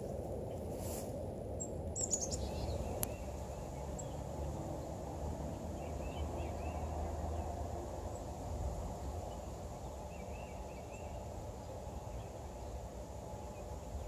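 A constant low droning hum of distant industrial noise, which the uploader takes to be a nearby power plant. Faint bird chirps come through now and then, and footsteps swish through grass in the first couple of seconds.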